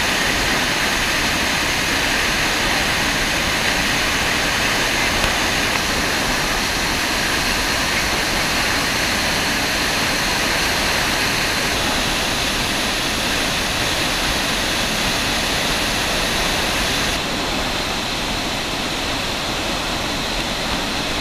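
Iguazu Falls at close range: a loud, steady rush of heavy falling water and spray. It turns slightly softer and duller for the last few seconds.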